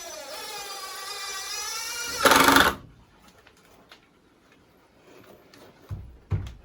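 Cordless drill driving a screw into the door framing: the motor whines, sagging in pitch and then rising, and ends in a short, loud rattling burst about two seconds in as the screw seats. A few low knocks near the end.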